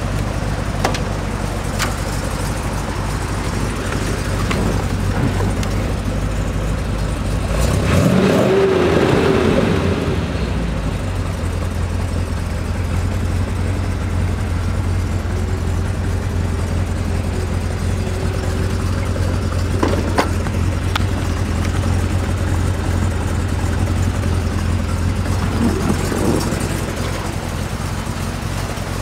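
A 1969 Corvette's 427 cubic-inch big-block V8 idling with a steady low rumble. It swells louder for about two seconds around eight seconds in.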